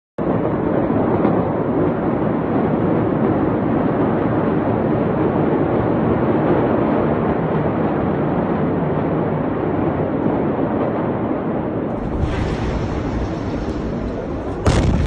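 A loud, steady rushing noise, then near the end a sudden loud blast from the explosion of the ammonium nitrate stored at the port.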